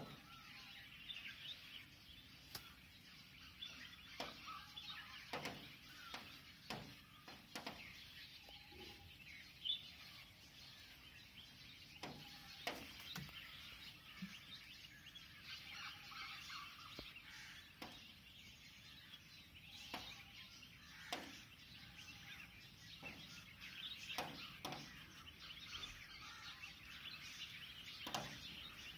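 Faint outdoor chorus of many birds chirping and calling, with a short mid-pitched call repeating every few seconds. Scattered sharp ticks are heard throughout.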